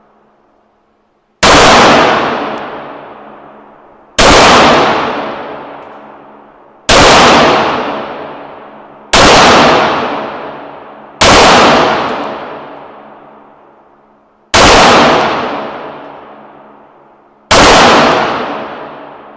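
Seven single gunshots from a .22 Long Rifle firearm, fired one at a time a few seconds apart, each cracking sharply and then ringing away slowly.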